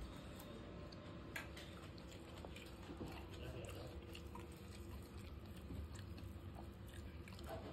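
Faint chewing of a mouthful of masala dosa, with scattered soft clicks as fingers tear the crisp dosa on a steel plate.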